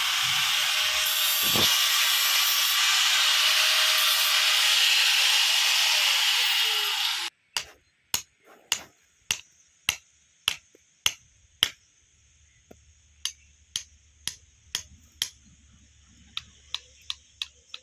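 A power tool runs loudly and steadily on 12 mm iron bar, then cuts off suddenly about seven seconds in. A series of sharp taps follows, about two a second at first, then more spaced out.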